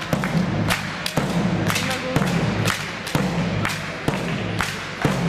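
Sharp knocks and thuds of a floorball game, with sticks striking the plastic ball and the boards, coming irregularly about once or twice a second over a steady low rumble in the hall.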